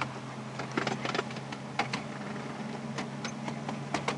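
Miniature railway train running along the track: irregular sharp clicks of the wheels over the rail joints, over a steady low hum.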